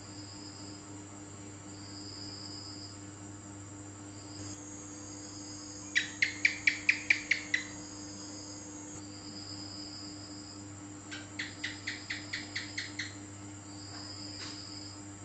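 A gecko calling: a run of about eight sharp chirps, roughly five a second, then a second, fainter run of about eight chirps some seconds later. Crickets trill steadily underneath.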